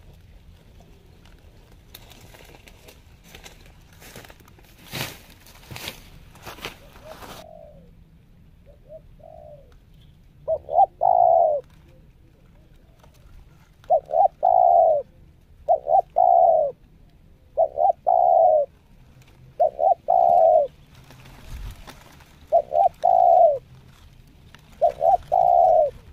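Spotted dove cooing: about seven short two-part coos, each about a second long, coming roughly every two seconds from about ten seconds in. For the first seven seconds there are only scattered rustles and knocks.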